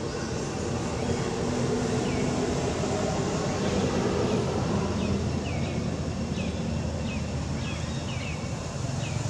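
Steady low outdoor rumble and hum, with a run of short, falling high chirps, one or two a second, starting about two seconds in.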